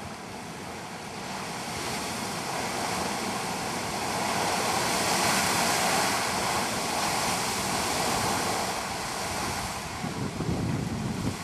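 Great Fountain Geyser erupting: a steady rushing hiss of water and steam that builds to its loudest as a burst shoots up about halfway through, then eases off. Near the end, low gusts of wind buffet the microphone.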